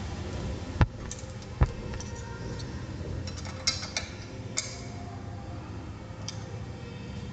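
Small metal clicks and taps of a screwdriver and bolt being worked on a bicycle headlight bracket, with two dull knocks about a second and a second and a half in, over a low steady rumble.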